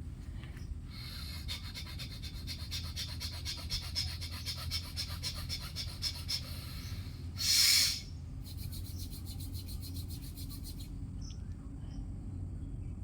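An insect calls in a fast, even run of high pulses, which stops about seven seconds in. A loud, brief rushing noise follows, then a second, shorter run of pulses, over a low steady rumble.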